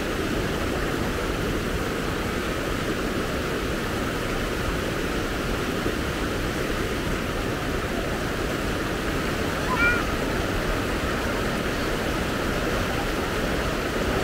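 Swift river water rushing steadily, an even wash of noise. A brief high-pitched chirp sounds about ten seconds in.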